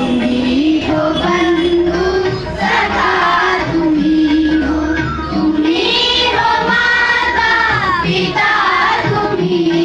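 A group of children singing a prayer song together in unison, with long held notes over a steady low drone.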